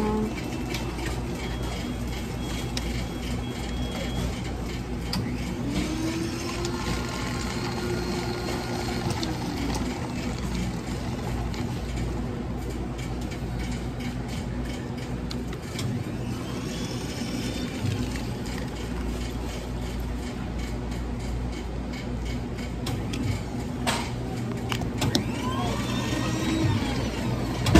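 Steady low machine hum of a convenience store's equipment, with faint indistinct pitched sounds drifting in now and then and a few short knocks near the end.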